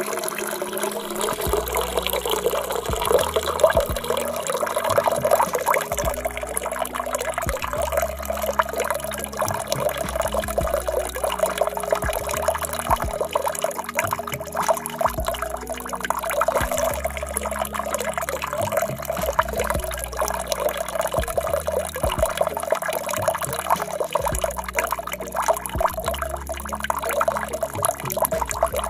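Water running in a steady flow, splashing and trickling without a break.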